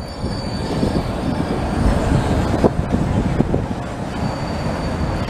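Siemens ULF low-floor tram passing at close range, its wheels rumbling and clattering on the rails with a faint high squeal from the wheels on the curved track.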